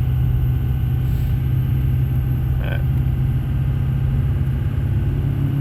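Steady engine and road drone heard from inside a moving vehicle's cabin, an even low hum that holds level throughout.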